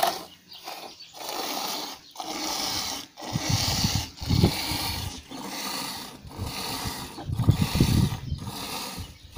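Goat being hand-milked: streams of milk squirting into a steel pail that already holds milk, a hiss with each pull in a steady rhythm about once a second. From about three seconds in there are low thuds and rustling as well.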